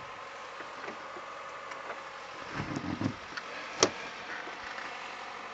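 Backhoe engine running steadily, with a few low thumps about two and a half seconds in and a single sharp click just under a second later.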